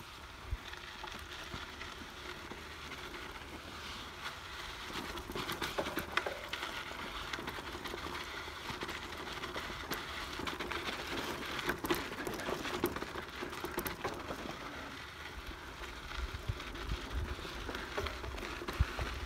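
Mountain bike tyres rolling and crunching over a dry dirt and gravel trail, a steady crackle with scattered small clicks, with low wind rumble on the microphone that grows stronger near the end.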